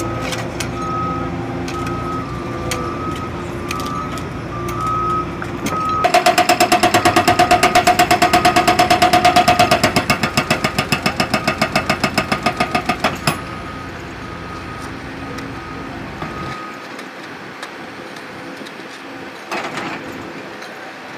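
Cat hydraulic hammer (breaker) pounding concrete in rapid, even blows for about seven seconds, starting suddenly about six seconds in and stopping abruptly. Before it, shovels scrape and clink in gravel and broken concrete while a beeping tone sounds on and off; afterwards a machine runs quietly in the background.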